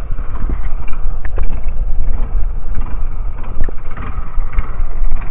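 Loud, uneven low rumble with scattered knocks, heard aboard a small wooden outrigger boat at sea.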